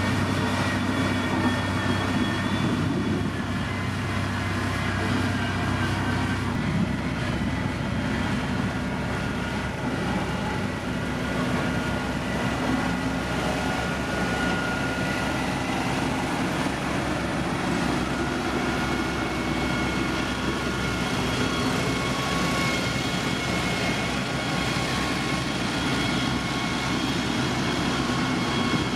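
Heavy road-construction machinery running steadily, with an engine drone and a high, steady whine over it; the low engine note shifts about seven seconds in.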